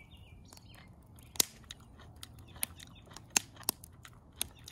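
Split logs burning in a concrete fire pit, giving off about five sharp crackles and pops at irregular moments. A bird chirps briefly at the start.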